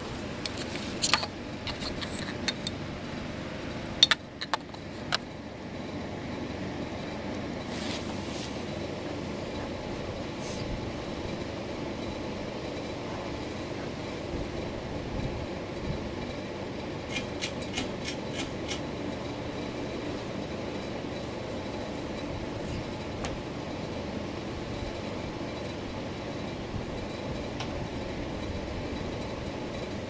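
Hugger four-blade ceiling fan running, a steady whir. A few sharp clicks come in the first five seconds, and a quick run of about six ticks a little past halfway.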